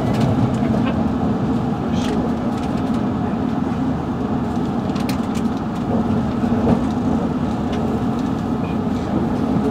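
London Underground Metropolitan line train running, heard from inside the carriage: a steady rumble with a low hum and scattered sharp clicks and rattles.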